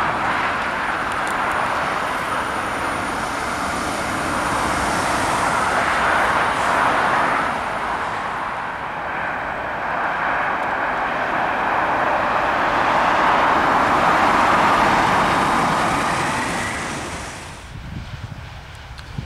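Steady rushing noise of a train running on an electrified main line. It swells and eases twice, then cuts off sharply near the end, leaving a few low thumps.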